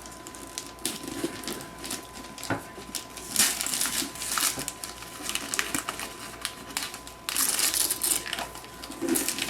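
A child tearing open a box's packaging: crinkling, crumpling and ripping noises in irregular bursts, with a longer, louder stretch of ripping near the end.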